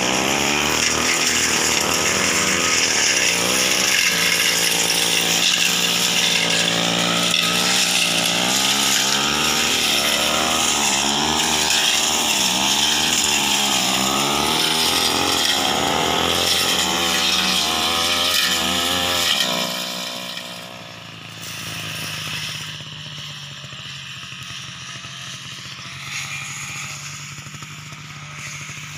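Brush cutter engine running hard while cutting through ferns and scrub, its pitch rising and falling over and over. About 19 seconds in it drops to a quieter, steady note.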